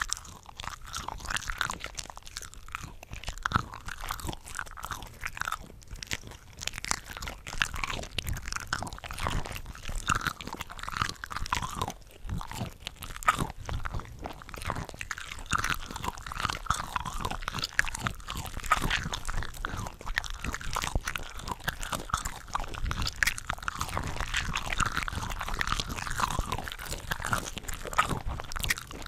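Close-miked mouth sounds of eating cooked shrimp: biting, chewing and wet crunching, with several eating tracks layered over one another into a dense, continuous stream of small snaps and smacks.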